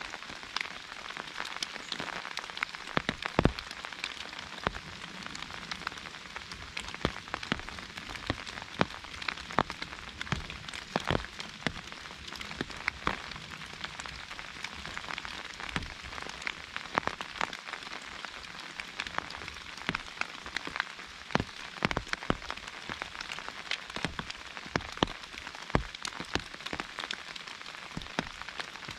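Rain pattering on an umbrella over a steady hiss of rain on broadleaf foliage, with frequent irregular sharp drop hits, a few heavier drops louder than the rest.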